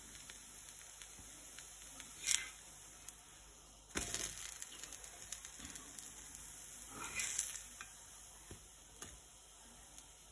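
Dosa batter sizzling faintly on a hot iron dosa pan, with three brief scrapes of a utensil on the pan spread through.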